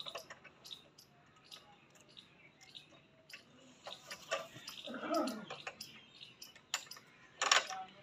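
Caged Indian ringneck parakeet making a short speech-like call with gliding pitch about five seconds in, among scattered sharp clicks. A short harsh burst, the loudest sound, comes near the end.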